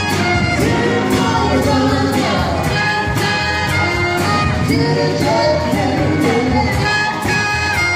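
Live band playing: horns, trumpet and saxophone, over a steady drum beat.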